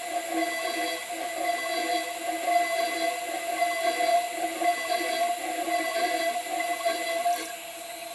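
CNC 6040 router spindle milling aluminium plate with a small end mill: a steady whine with rough cutting chatter. About seven and a half seconds in, the cut ends and the sound drops to a quieter, smoother spindle whine as the tool moves to the next hole.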